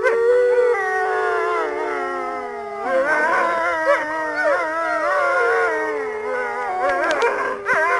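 A chorus of wolves howling, several voices overlapping: one low howl held steady underneath while higher howls rise and fall above it.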